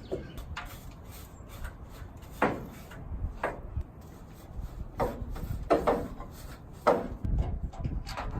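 A series of irregular knocks and scrapes, about six in all, over a low rumble: something hard being handled and set down.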